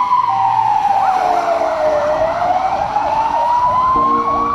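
Emergency vehicle sirens: one slow wail rising and falling, with a second, faster yelping siren joining about a second in.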